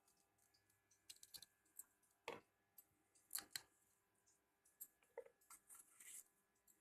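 Faint, irregular clicks of a knife slicing okra pods lengthwise into quarters, about a dozen in all with a small cluster near the end.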